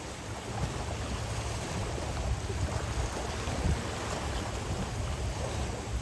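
Flowing river water with wind buffeting the microphone, a steady rush over a low rumble.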